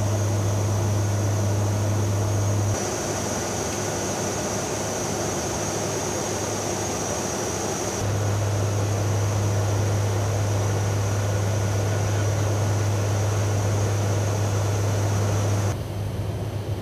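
Lockheed WC-130J Hercules turboprops running in flight: a steady propeller drone with a strong low hum and a thin high whine. The low hum drops away abruptly about three seconds in, comes back about eight seconds in, and drops again near the end.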